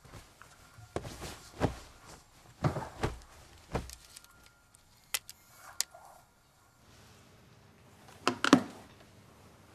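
Household handling sounds: a few soft thumps and rustles, then two sharp clicks a little over halfway through as a charging cable is plugged into a phone, and a couple of knocks near the end.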